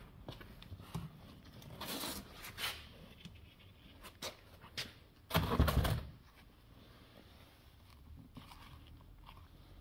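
Handling noises from taking apart a car door's interior trim: scattered clicks and light scrapes, with one louder rubbing scrape about halfway through.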